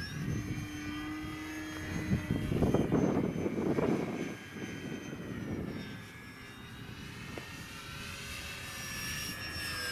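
Radio-controlled model airplane flying overhead, its motor and propeller giving a high whine whose pitch sags around the middle and climbs again near the end. A low rushing of wind on the microphone swells about three seconds in.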